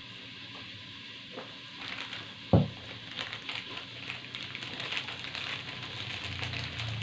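A single sharp thud about two and a half seconds in, a drinking glass set down on a hard surface, followed by a few seconds of small crackling and crinkling from hands handling snack packaging.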